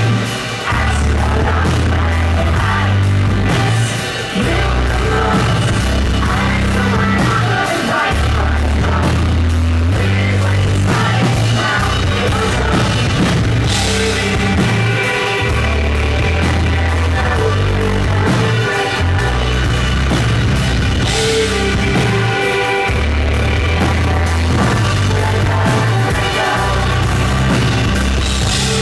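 Live rock band playing loud over a venue PA, with drum kit and a pulsing bass line, recorded from within the audience.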